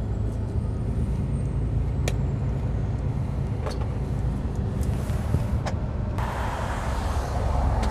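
Steady low engine and road rumble heard from inside a moving lorry's cab in slow motorway traffic, with a few faint clicks. About six seconds in, a steady hiss joins the rumble.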